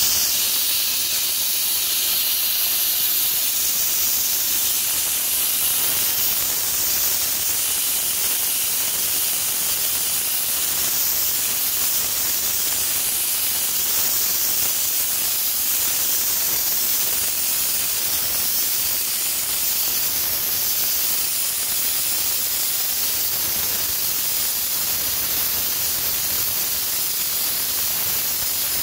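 Sandblaster nozzle blasting abrasive onto a truck fender, making a steady hiss as it strips old paint and filler down to bare metal.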